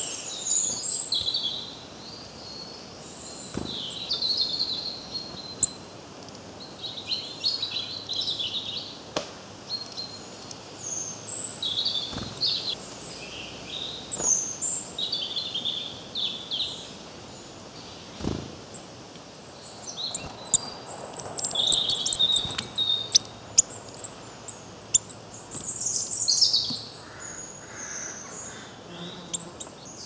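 Small songbirds calling with many short, high chirps and twitters, the busiest and loudest stretch about two thirds of the way in. A few light taps are heard among the calls.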